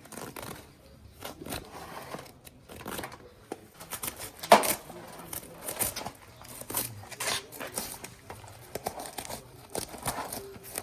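Rustling and crinkling of material being handled, with scattered short knocks and one sharp knock about four and a half seconds in.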